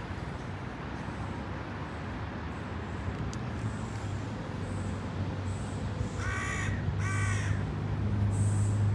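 Two short animal calls, close together, over a steady background hiss. A low hum grows louder near the end.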